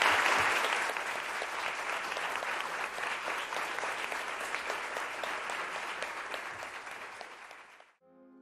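Audience applauding, loudest at first and gradually fading, cut off abruptly about eight seconds in.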